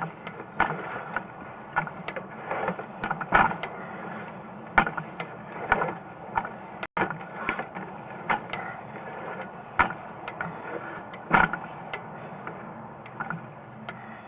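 Sewer inspection camera's push cable being fed by hand through a drain line: irregular clicks and knocks of the cable and reel, about one or two a second, over a steady hum.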